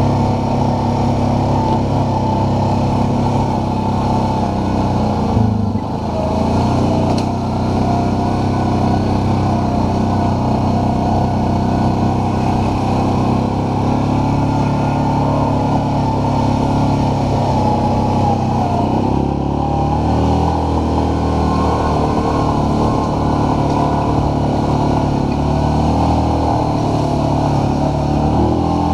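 ATV engine running under way, steady and loud, its pitch shifting as the engine speed changes about six seconds in and again near nineteen seconds, with a steady rush of noise underneath.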